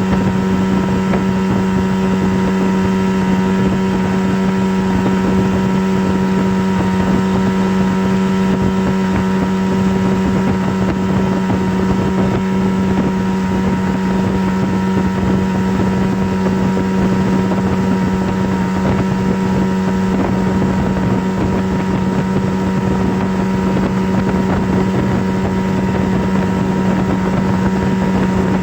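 A steady, unchanging low hum: one deep tone with fainter overtones above it over an even rushing noise, used as a relaxation drone.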